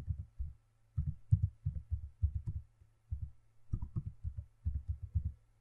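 Computer keyboard being typed on in short bursts of keystrokes, picked up as dull low thuds over a faint steady hum.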